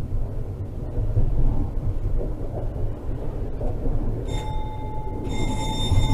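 Tram running on its rails, a steady low rumble heard from the driver's cab. About four seconds in, a steady high tone starts and keeps sounding.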